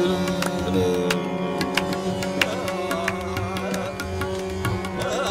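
Qawwali ensemble music without singing: harmonium holding steady notes over a regular beat of tabla strokes.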